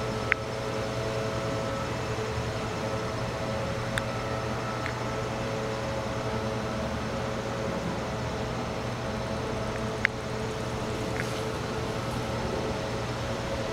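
A steady mechanical hum, with a few short sharp clicks, the strongest just after the start and about ten seconds in.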